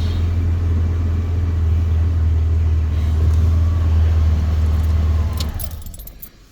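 A 4WD's engine idling steadily, then switched off about five seconds in and dying away, with keys jangling as the ignition is turned off.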